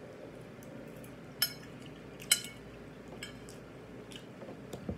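Two sharp clinks of a metal fork on a ceramic plate, about a second and a half in and again a second later, with fainter mouth clicks from chewing.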